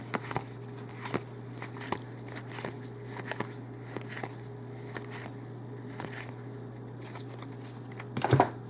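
Trading cards and a booster pack being handled: scattered soft clicks and rustles of cards being flipped and sorted, over a steady low electrical hum.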